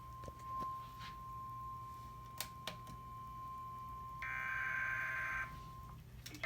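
Emergency Alert System SAME header: a burst of data tones about a second long, starting about four seconds in. Under it is a faint steady high tone, with two clicks before the burst.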